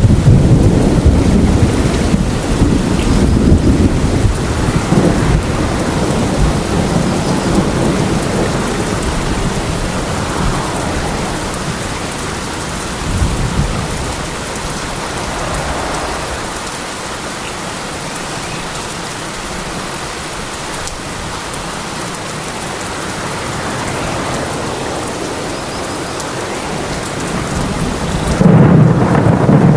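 Steady rain falling in a thunderstorm. Low rolling thunder fades over the first few seconds, the rain carries on alone, and a loud rumble of thunder builds up near the end.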